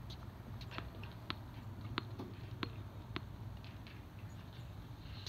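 Light, sharp taps, about one every two-thirds of a second and fading near the end, over a steady low hum on a tennis court.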